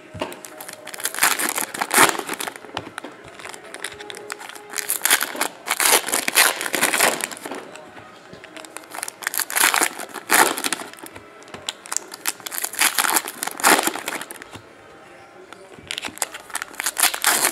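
Foil trading-card pack wrappers crinkling and cards being handled and shuffled, in irregular bursts of crackling rustle.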